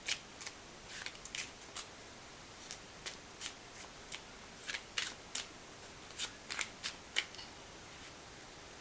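Tarot cards being shuffled and drawn by hand: a string of sharp, irregular card snaps and flicks that stop a little after seven seconds in.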